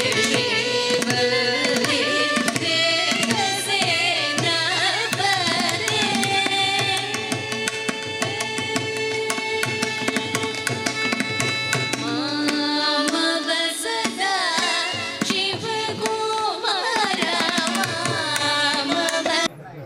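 Background music: an Indian song with a singer's gliding melody over hand-drum strokes and held accompanying tones. It starts abruptly and cuts off suddenly near the end.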